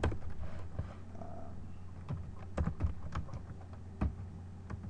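Computer keyboard being typed on in short, irregular bursts of keystrokes, a command typed at a terminal, over a steady low hum.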